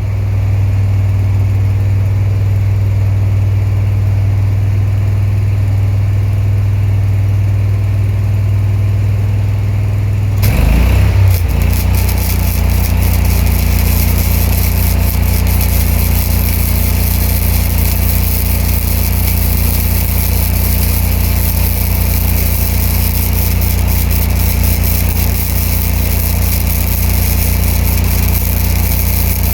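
Engine of a Ranger engine-driven welder-generator running steadily; about ten seconds in, the spool-gun MIG arc is struck and crackles continuously, with the engine note changing as it takes the welding load.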